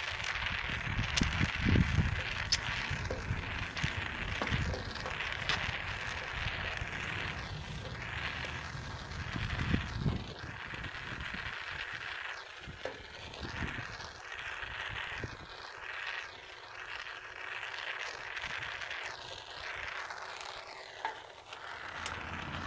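Oxygen-propane torch flame hissing steadily as solder is melted along the seam of a radiator tank, with occasional faint crackles. A low rumble runs under it during the first half.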